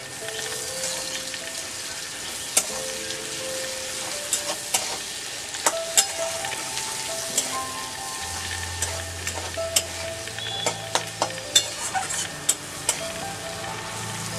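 Sliced onions sizzling as they fry in hot oil in a wok, stirred with a flat metal spatula that clicks and scrapes against the pan at irregular moments.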